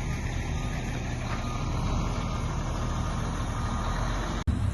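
Heavy vehicle's engine idling steadily, with a low, even hum that cuts off suddenly near the end.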